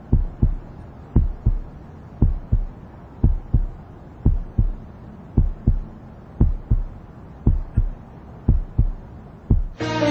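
Heartbeat sound effect: low thumps in lub-dub pairs, about one beat a second, over a faint hum.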